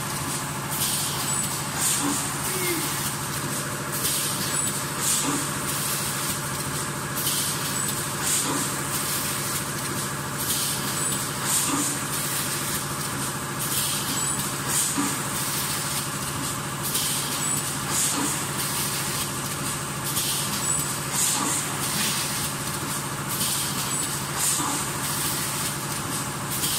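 Leno bag cutting and sewing machine running: a steady motor hum under repeated short hisses every second or two, with light mechanical clicks.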